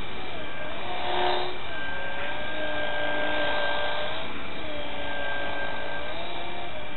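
Micro RC airplane's small electric motor and propeller whining, its pitch rising and falling several times as the throttle changes, over a steady hiss, with a brief rush of noise about a second in.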